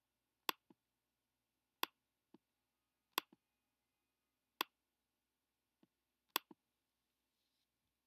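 A computer pointing device clicking: five sharp clicks spaced about a second and a half apart, each followed a moment later by a fainter second click.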